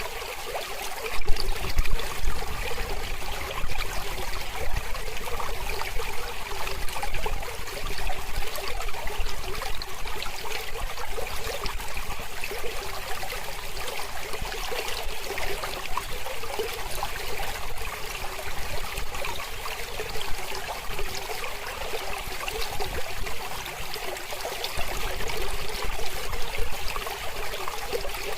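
Small mountain river flowing over rocks: a steady rushing and trickling of water.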